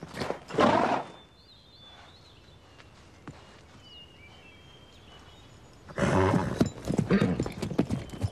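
A grey horse under saddle: a short whinny in the first second, then a quiet stretch, then hoofbeats and more horse noises over the last two seconds or so.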